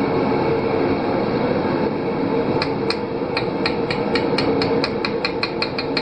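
Quick light hammer taps on a metal scooter engine crankcase, starting about halfway through and speeding up, over a steady rumbling noise.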